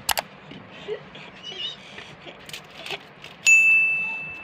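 A sharp double clack at the start, a few light ticks, then about three and a half seconds in a single bright metallic ding that rings on one high pitch and fades.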